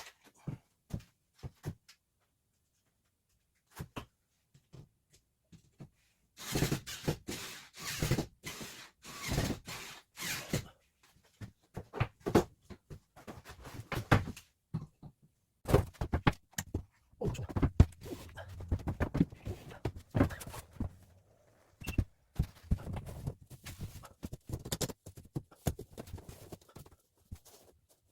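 Irregular knocks and thuds of plywood panels being handled and fitted against a bus ceiling, with denser stretches of clattering and scraping.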